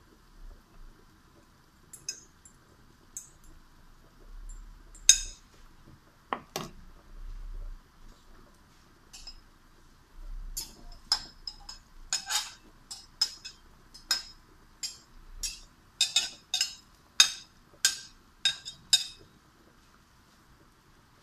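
Kitchenware clinking off to the side of a frying pan: a sharp clink about five seconds in and a dull knock just after, then a quick run of clinks, about two a second, for around nine seconds, over a faint steady hiss.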